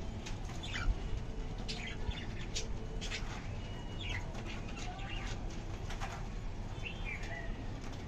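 Cockatiels biting and tearing at a hanging leafy green: a string of short crisp clicks and crunches, with a few brief chirps, over a steady low rumble.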